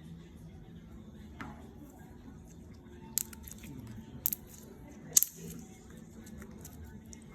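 Hands working slime: faint squishing with a few sharp clicks, the loudest about five seconds in.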